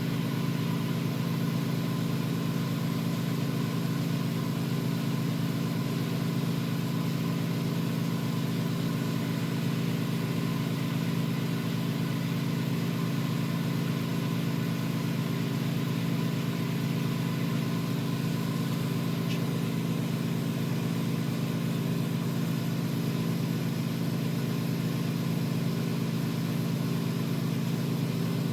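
Steady, unchanging low machine hum from shop equipment running continuously, with no starts, stops or changes in speed.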